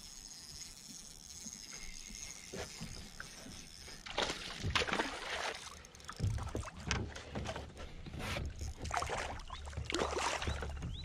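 A hooked bass splashing and thrashing at the surface beside a fishing kayak, with knocks and handling noise from the boat. The splashing starts about four seconds in and goes on in irregular bursts.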